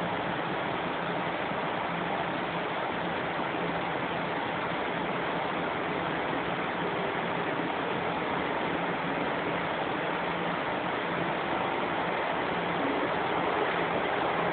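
Lisbon Metro ML90 prototype subway car running at speed, heard from inside the car: a steady rushing noise of wheels on rail and air in the tunnel. A faint whine rises near the end.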